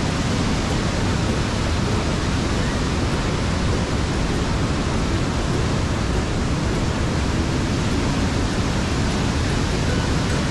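Steady rushing of Niagara's Bridal Veil Falls pouring onto the rocks below, an even, unbroken wash of falling-water noise.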